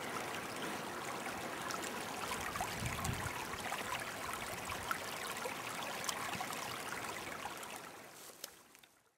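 Shallow stony stream running steadily over rocks and gravel with a gentle trickle, fading out near the end.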